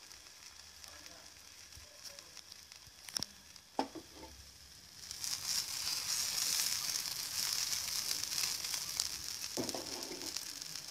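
Quinoa tortilla batter frying in a lightly oiled pan. It is faint at first, with two light knocks a little after three seconds in, then the sizzle grows loud about five seconds in and keeps going.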